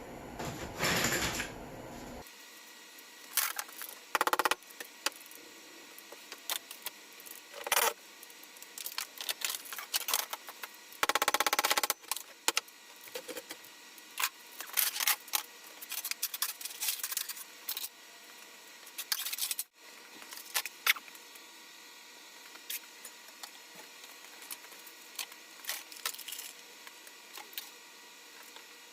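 Scattered clinks, knocks and rattles of small hard objects, some in quick clusters, as things are handled and set down while sorting scrap in a garage.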